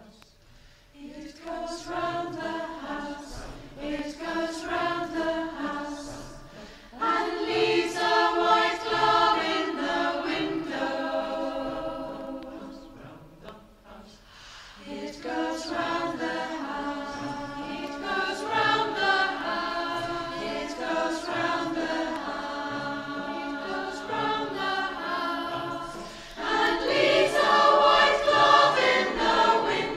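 A four-part SATB community choir singing, recorded on a phone. The voices enter about a second in, ease off briefly between phrases around the middle, and swell louder near the end.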